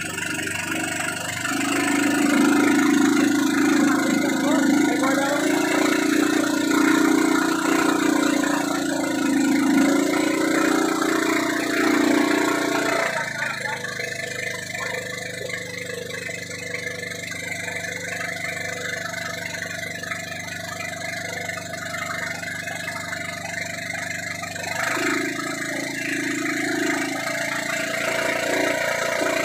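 Engine of a motorized outrigger boat running steadily under way, with a louder droning note through the first half and again briefly near the end.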